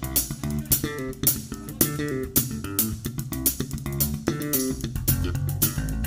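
Jazz band playing an instrumental passage: a guitar line of quick notes over bass guitar and drums.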